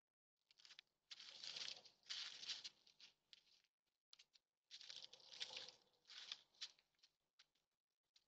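Faint rustling and crunching as two white-tailed does move and feed on gravel and crusted snow, in two bouts of about two and a half seconds each.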